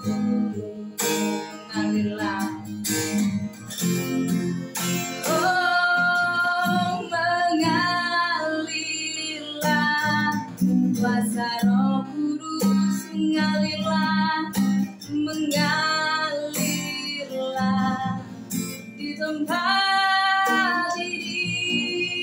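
A woman singing an Indonesian Christian worship song while strumming an acoustic guitar.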